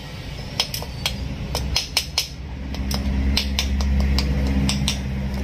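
Sharp, irregular metallic clicks of a socket wrench turning bolts on a Honda TMX 125 Alpha engine's crankcase, about two to three a second. A low rumble builds in the background from about three seconds in.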